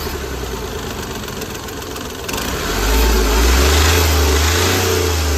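Hyundai Grand i10 diesel engine idling smoothly, then revved up about two and a half seconds in and held louder. Its Delphi injectors are freshly repaired, and it runs smooth, with no hunting or misfire.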